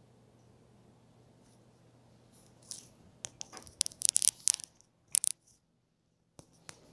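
Crackling, scraping clicks of a phone being handled against its microphone, a dense run of sharp clicks in the middle followed by two lone clicks near the end, over a faint steady low hum.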